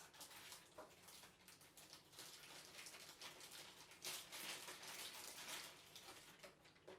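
Faint rustling and crinkling of packaging being handled, a dense run of small crackles that grows louder about four seconds in and eases again near the end.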